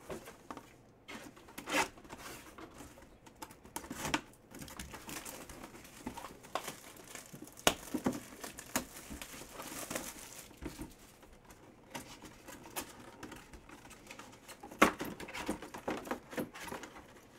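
Plastic shrink wrap crinkling and tearing as it is pulled off a cardboard box, with irregular crackles and clicks that are busiest in the middle.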